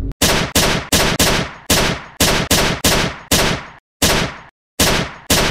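Gunshot sound effects: about a dozen pistol shots fired in an uneven rapid series, each a sharp crack with a short fading tail, with two brief pauses near the end.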